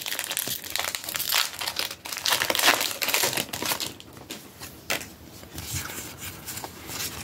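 Foil booster-pack wrappers crinkling and crumpling as packs of Pokémon trading cards are handled and opened, louder in the first half and quieter after about four seconds.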